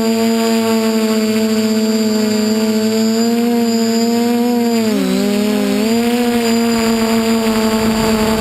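DJI F450 quadcopter's electric motors and propellers whining steadily. The pitch dips briefly about five seconds in, as the throttle eases, then comes back up.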